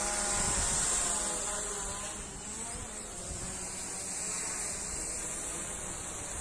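Small drone's propellers buzzing overhead, the pitch wavering slightly, louder for the first two seconds and then fainter, over a steady high hiss.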